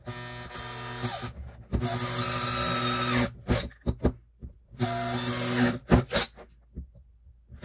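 Makita cordless drill boring 5/16-inch holes through a plastic boot sole, motor whining at a steady pitch. It runs in two bursts: a long one of about three seconds with a brief drop partway through, then a shorter one of about a second around five seconds in. A few sharp knocks follow the second burst.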